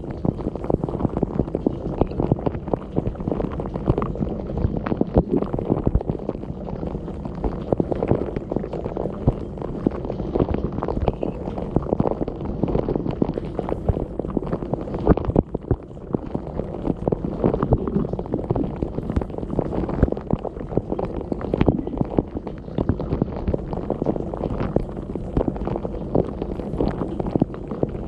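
Dishwasher wash cycle heard from inside the tub: water jets from the spray arms beat on the plates and on the camera, a dense, muffled splashing full of small spatters.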